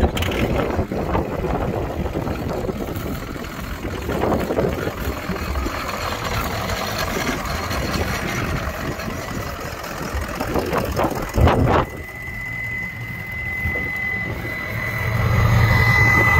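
Ford F-250 pickup's engine idling steadily. A brief knock comes about eleven seconds in, a steady high whine joins soon after, and the low exhaust hum grows louder near the end, close to the tailpipe.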